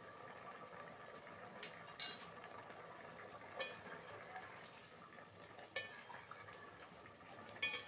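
A utensil stirring rice in a metal pot of simmering pulao as the remaining water cooks off, clinking against the pot about four times over a steady low hiss from the pot.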